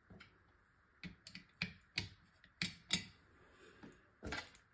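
Small metal screws and a precision screwdriver being handled on a tabletop: several light, scattered clicks and taps.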